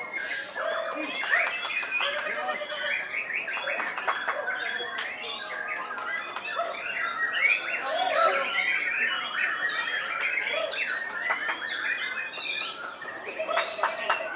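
Several caged white-rumped shamas singing at once: a dense, unbroken mix of overlapping whistles, trills and chirps.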